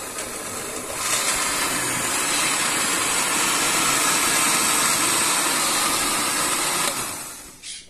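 Countertop electric blender running, puréeing cooked chiles and tomatoes into a liquid sauce. It steps up louder about a second in, runs steadily, then winds down and stops near the end.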